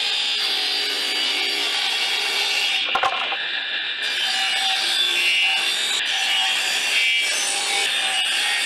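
Table saw running and cutting through salvaged wood boards, with a sharp knock about three seconds in.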